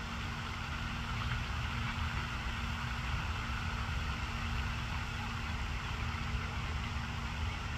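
Steady low rumble with a constant mechanical hum under a wash of hiss, unchanging throughout.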